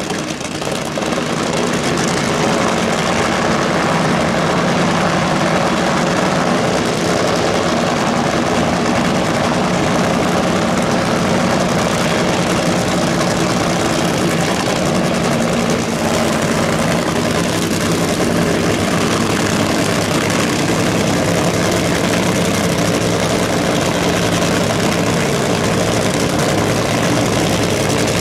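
Top Fuel Funny Car engines, supercharged V8s burning nitromethane, idling steadily and loudly after the burnout.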